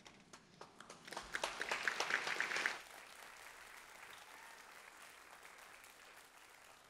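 Audience applauding, building up and then stopping fairly abruptly about three seconds in, leaving only faint room noise.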